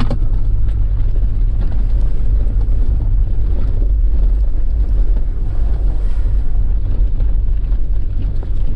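Wind buffeting the microphone of a hood-mounted camera on a moving 4x4. It makes a loud, steady low rumble over the noise of the vehicle driving on a gravel road.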